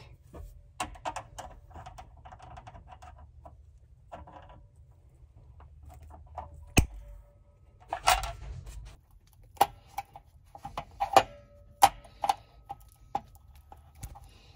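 Scattered clicks and metallic clinks of hand tools, needle-nose side snips and a screwdriver, handled against the sheet-metal top of an electric water heater. One sharp snap about seven seconds in, as the copper ground wire is clipped.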